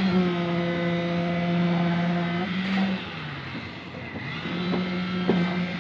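Engine of a concrete mixer running at a steady speed, its pitch sagging about three seconds in and then picking back up, with a few sharp metal clanks near the end.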